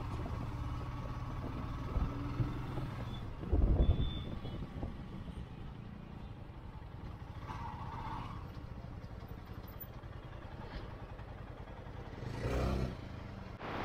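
Motorcycle engine running steadily at low road speed, with two short louder swells, one about four seconds in and one near the end.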